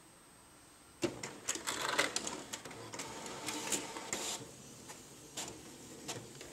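HP inkjet printer starting to print, about a second in: a run of clicks and whirring, louder at first and quieter after about four seconds. It is test-printing with a cartridge that has just been unclogged in hot water.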